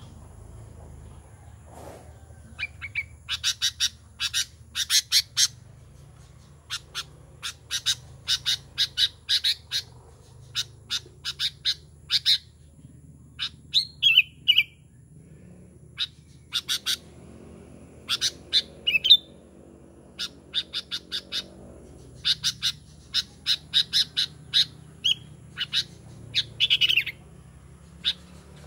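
Sooty-headed bulbul calling in repeated bursts of quick chattering notes, with a few downward-sliding notes mixed in.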